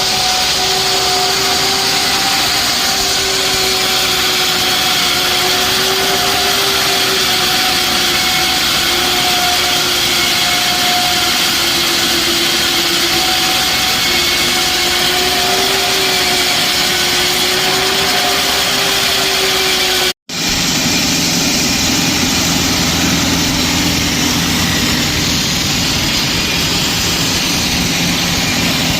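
Concrete-cutting machine running steadily under load with a slightly wavering whine. About two-thirds of the way through it cuts off abruptly and gives way to a lower-pitched machine running steadily.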